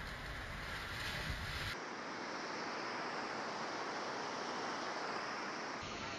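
Rushing floodwater, a steady roaring noise of a fast muddy torrent. The sound changes abruptly about two seconds in and again near the end.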